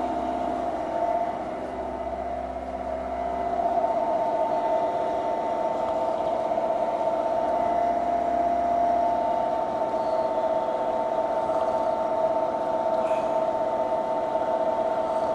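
Machine tool taking a 0.5 mm deep cut along the side of an aluminum plate, running with a steady whine.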